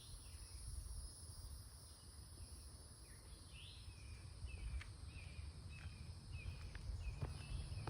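Rural ambience: a steady high drone of insects, with a bird giving a string of short repeated chirps over the second half, over a low rumble of wind on the microphone.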